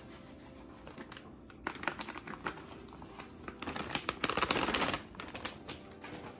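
A plastic bag of shredded cheese crinkling and rustling as it is shaken out, with scattered light clicks. The rustling is loudest about four seconds in.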